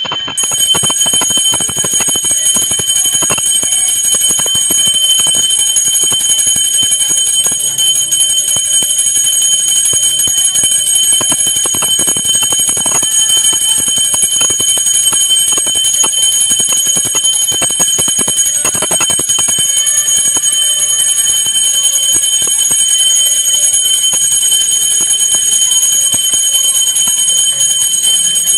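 Pooja hand bell rung continuously during the aarti: a steady, loud ringing with the clapper striking many times a second.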